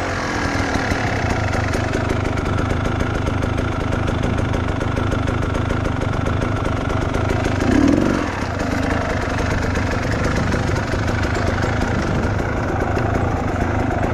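Trail motorcycle engine running steadily near idle, briefly louder about eight seconds in.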